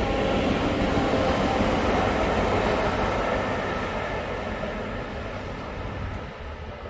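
Network Rail stoneblower, a self-propelled track maintenance machine, passing on the rails: its engine and wheels make a steady noise that peaks about two seconds in and then fades away.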